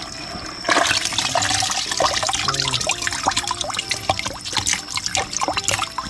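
Hands stirring through a bucket of water full of live loaches: busy splashing and sloshing that starts about a second in.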